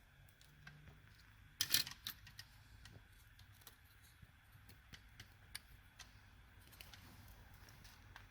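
Stacked printed circuit boards being handled: scattered light clicks, with a brief louder clatter about one and a half seconds in.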